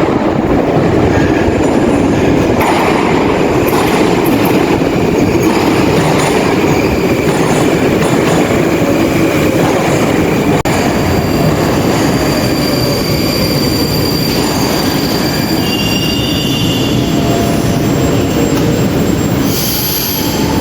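Moscow Metro train running: a loud steady rumble of the car and wheels on the rails, with thin high-pitched wheel-squeal tones coming in over the second half.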